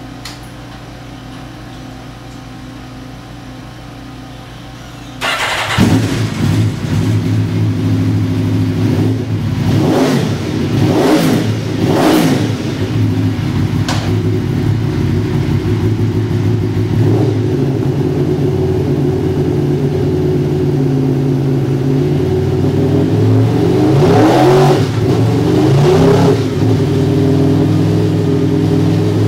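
2010 Aprilia RSV4 Factory's 65-degree 1000cc V4 through a Leo Vince slip-on exhaust, on a dyno. After a quieter steady hum, the engine comes in loud about five seconds in. It is then blipped in several quick revs up and back down, with a longer rise and fall near the end, and it idles in between.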